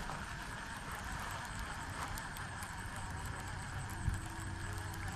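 Steady low rumble and hiss of outdoor background noise, with a light knock about four seconds in.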